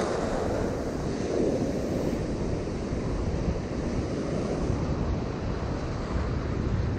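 Ocean surf breaking and washing in foam over shore rocks, a steady rush of water, with wind buffeting the microphone.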